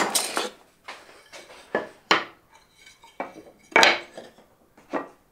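Lengths of pine knocking and clattering against each other and the bench as they are handled and set down: about six short, separate knocks, the loudest a little before the four-second mark.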